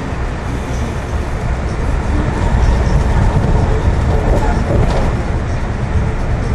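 Steady rumble of a moving passenger train, wheels running on the rails, heard from inside the coach.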